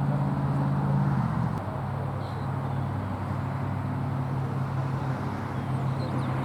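A steady low engine hum from a motor vehicle running nearby, its pitch dropping a little about a second in and then holding.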